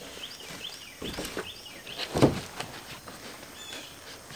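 Knocks and thumps of a large engineered-wood siding panel being handled and set up against a house-wrapped wall, with one loud knock about two seconds in. Small birds chirp in short repeated notes.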